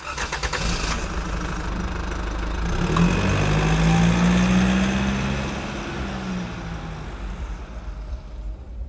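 Vehicle engine running while driving, over a steady hiss of road noise. Its hum climbs in pitch and grows louder about three to five seconds in, as it accelerates, then eases off. A sharp click comes about three seconds in.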